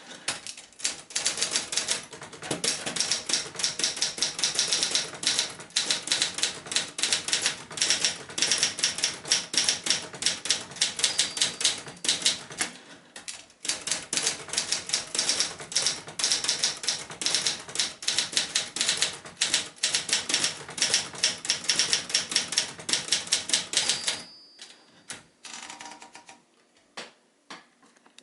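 1965 Adler J4 portable typewriter being typed on: fast, rapid keystrokes with a short pause about halfway through. The typing stops some four seconds before the end, with a short ring and a few scattered clicks after it.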